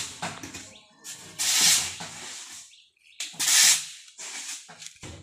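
Shovels scraping and pushing river sand down the steel bed of a tipped tractor trailer: two long, strong scraping strokes about two seconds apart, with weaker scrapes near the start and end.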